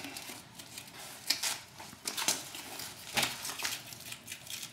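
Hands handling the tubular metal frame and strap of a paramotor cart: a few irregular clicks, knocks and rustles.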